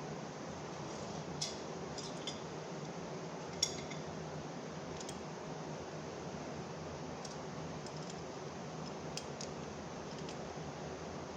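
Scattered light metallic clinks and taps, the loudest about three and a half seconds in, over a steady low hum of room noise: small metal parts being handled as stacked buffing pads are mounted on a tool's spindle.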